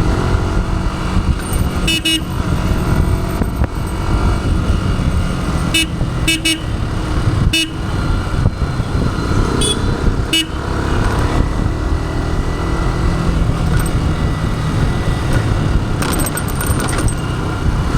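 First-generation Yamaha YZF-R15's 150 cc single-cylinder engine running on its stock exhaust while being ridden. Several short vehicle horn toots sound over it, about six times.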